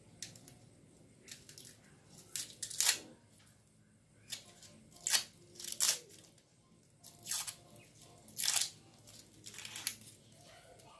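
Dry, papery skin of a large onion crackling and tearing as it is peeled and cut away with a knife on a plastic cutting board, in a series of short, irregular bursts.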